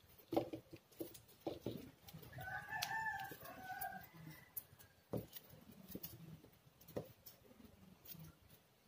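A rooster crows once for about two seconds, starting about two seconds in. Scattered sharp clicks and knocks come from a plastic straw and rubber hose being handled and fitted together, the loudest about half a second in.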